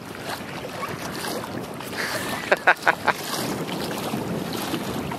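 Wind buffeting the microphone over water lapping and splashing around kayak hulls in a strong current. About halfway through come three brief sharp sounds close together.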